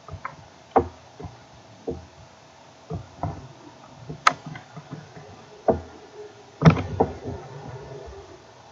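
A dozen or so irregular, scattered clicks and knocks at a low level, the sharpest about four seconds in.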